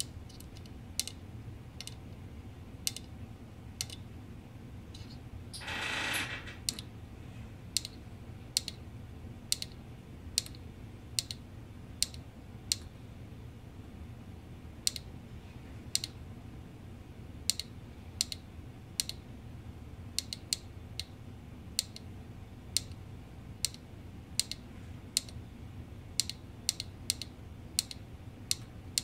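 Small push button on a circuit board pressed again and again by a finger: dozens of sharp single clicks, about one or two a second with a short pause near the middle, each press stepping the digital clock's displayed time. A brief hiss about six seconds in, over a steady low hum.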